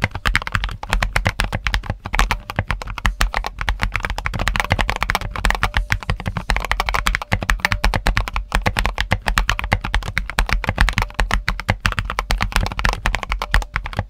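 Fast, continuous typing on a 60% mechanical keyboard with a plastic plate, a dense run of keystroke clacks. The switches have lubed springs but dry leaf springs, which leave a high-pitched metallic ping under the keystrokes.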